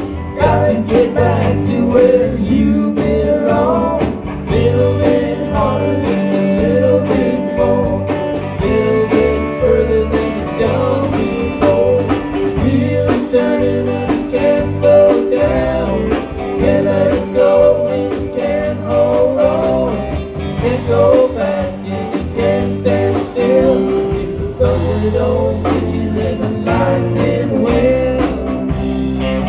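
Live rock band playing an instrumental passage: a wandering electric guitar lead over bass and a steady drum kit.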